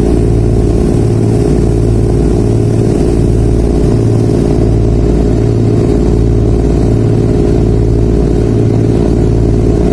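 Ferry's diesel engines running steadily underway: a loud, constant low drone with an even, rhythmic throb.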